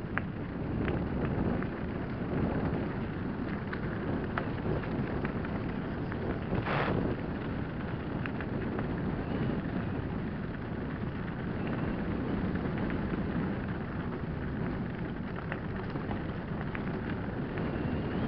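Mountain bike rolling fast down a loose stony gravel track: a steady rumble of tyres on gravel with many small clicks and rattles from stones and the bike, under wind noise on the microphone. A brief hiss stands out about seven seconds in.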